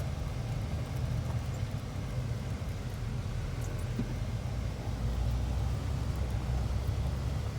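A Jeep Wrangler TJ driving, with a steady low engine and road rumble.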